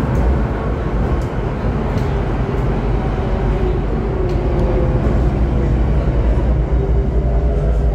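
Inside a C951 Downtown Line metro train car while it runs: a steady low rumble of the wheels and running gear, with a faint motor whine.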